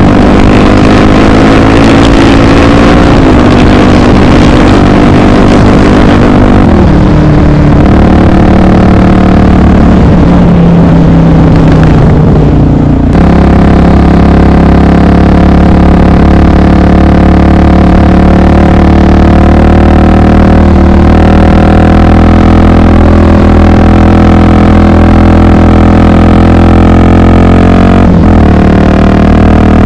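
Honda XR 250 Tornado's single-cylinder four-stroke engine running loud while under way. Its note shifts and falls over the first dozen seconds, breaks off briefly at about twelve seconds as for a gear change, then holds steady, with another short dip near the end.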